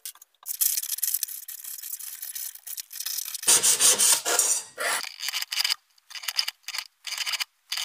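Sheet-metal cone blanks being scuffed round their edges with a bit of cloth to take the edge off: repeated rubbing strokes, with a louder scrape about four seconds in and shorter strokes after it.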